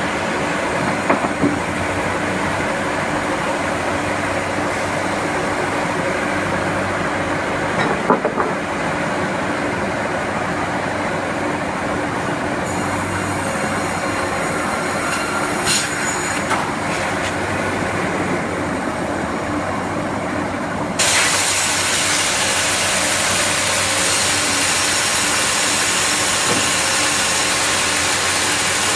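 CNC sawmill line running, a steady mechanical hum with a few sharp clanks. About two-thirds of the way through, the sound jumps suddenly to a louder, hissing noise.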